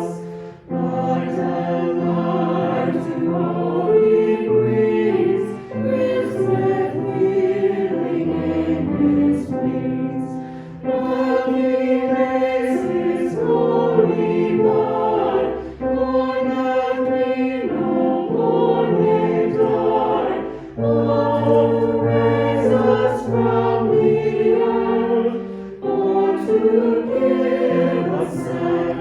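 A choir singing a hymn in long held phrases, with short breaks between phrases.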